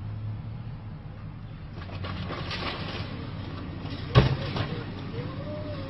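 A single loud crash about four seconds in, with a smaller knock half a second later, over the steady hum and road noise of the car the footage is filmed from. Near the end a faint wavering whine rises and falls.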